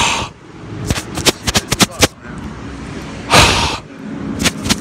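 Close-up chewing and lip-smacking right against a phone's microphone: irregular runs of sharp clicks, with two loud rushes of noise, one at the very start and one about three and a half seconds in.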